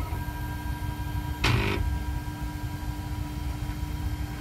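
Flashforge Creator Pro 3D printer's stepper motors whining steadily as the print head travels. About a second and a half in there is a brief, loud burst of noise as the head stutters and skips, a fault the owner guesses is a bad stepper motor wire.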